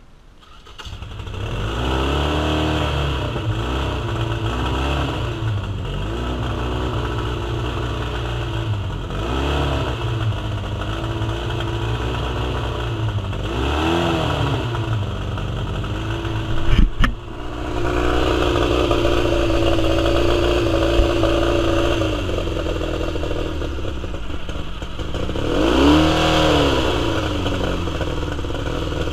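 2001 Mercury 75 four-stroke outboard, a four-cylinder, four-carburettor engine, starts about a second in and runs with its speed rising and falling several times, open with the cowling off. A sharp knock with a brief stumble comes about halfway through, then it runs steadier and faster before another rise and fall. Its four carburettors need cleaning after years sitting with fuel in them.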